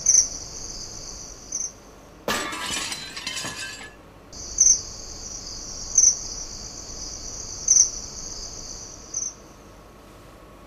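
Crickets chirping steadily, with a louder chirp about every second and a half. About two seconds in, the chirping cuts off for a second and a half under a loud, noisy burst. Near the end it stops, leaving only a faint background.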